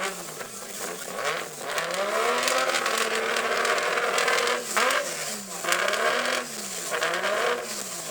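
Drift car engine revved for a decibel noise test. The revs climb and are held high for about two seconds, then the throttle is blipped up and down four or five times in quick succession.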